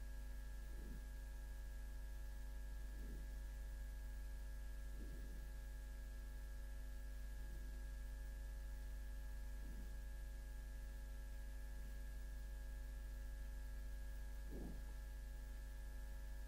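Steady electrical mains hum, a constant low buzz with several fixed overtones. Faint soft sounds come every couple of seconds, a little stronger near the end.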